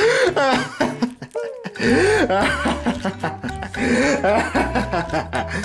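Quick, bouncing bursts of cackling laughter over background music, with a steady bass line coming in about two seconds in.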